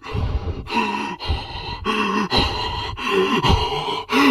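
A person's voice making a run of short wordless vocal sounds, gasps and breathy noises, one after another.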